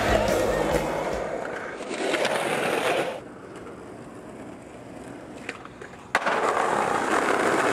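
Skateboard wheels rolling over asphalt. After a quiet stretch with a single click, there is a sharp slap as a skateboard lands a jump down a stair set, about six seconds in, and its wheels roll on over paving.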